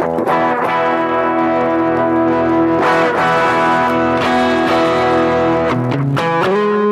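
Electric guitar played through a Caline C300 effects unit. Strummed chords ring on, with a fresh strum about three seconds in, then quicker single-note changes near the end.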